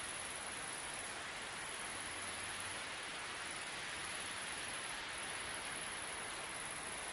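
Steady wind over open country: an even, unbroken hiss with no gusts or breaks.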